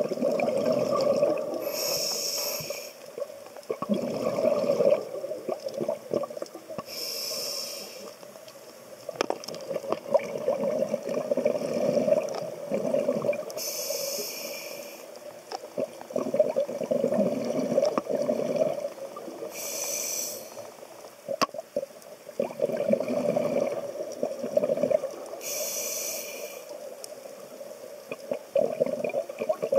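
Scuba regulator breathing underwater: a hissing inhale about every six seconds, five in all, each followed by loud, long bubbling as the exhaled air streams out.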